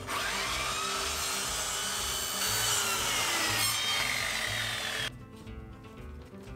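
Compact circular saw cutting through a cardboard concrete forming tube as the tube is rolled round under the blade. The motor's whine drops in pitch as it cuts, and the saw stops suddenly about five seconds in.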